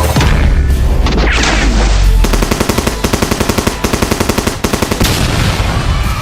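A fast rattle of sharp bangs, like machine-gun fire, starting about two seconds in and lasting some three seconds, over loud music with a heavy low end.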